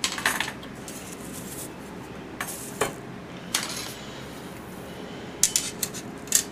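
Two laptop screen bezels being handled and turned over: scattered light clicks and clinks, with a quick cluster of them near the end.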